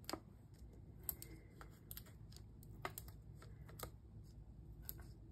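Foam adhesive dimensionals being peeled off their sheet and pressed onto a paper tag: faint, scattered sharp clicks and ticks, one or two a second.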